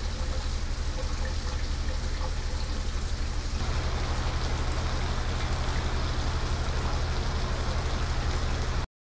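Shower water running, a steady hiss of falling spray over a low hum; its tone shifts a little over a third of the way in, and it cuts off abruptly near the end.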